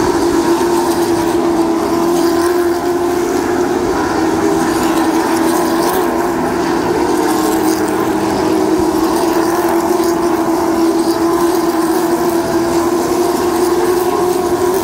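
Race cars' engines running in a pack around the short oval track: a loud, steady drone with a strong, even hum that hardly rises or falls.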